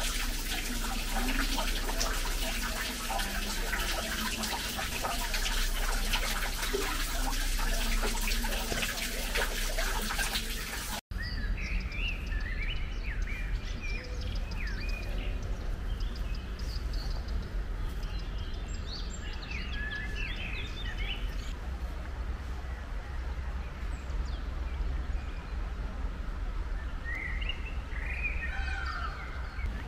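Water splashing steadily in a stone grotto fountain, cutting off suddenly about eleven seconds in; after that, birds chirping in a few short runs of calls.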